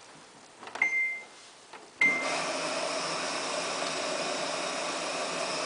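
Samsung washing machine control panel beeping as a test step is selected: one short beep about a second in, then a second beep at about two seconds as the water inlet valve opens and water rushes steadily into the drum.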